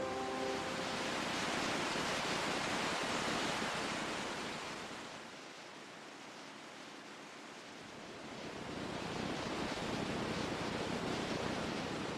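Ocean surf: a steady rush of waves that swells, falls away for a few seconds near the middle, then builds again.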